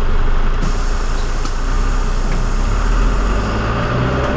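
Minibus engine and road noise heard from inside the cabin while driving: a steady low drone that grows a little stronger about two seconds in.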